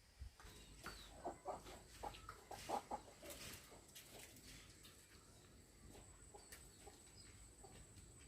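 Chickens clucking faintly, a run of short clucks in the first few seconds, then fewer and quieter.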